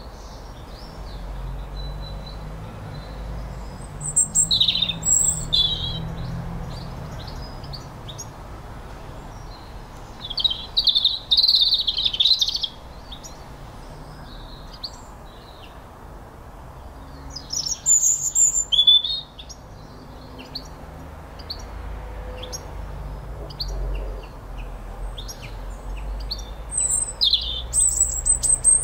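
Songbirds singing outdoors in about four bursts of quick, high chirps and trills, over a low steady background rumble.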